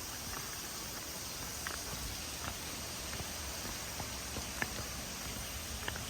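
Steady rush of a waterfall, with a few short light clicks or taps scattered through it, more of them in the second half.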